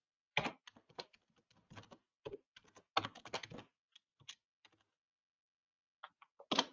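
Typing on a computer keyboard: irregular keystrokes, with a quicker run about three seconds in, then a pause of about a second before a few last keys near the end.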